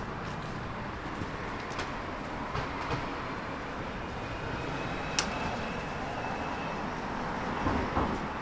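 Steady outdoor street ambience: a wash of background noise, likely traffic, with scattered small clicks and one sharp tap about five seconds in.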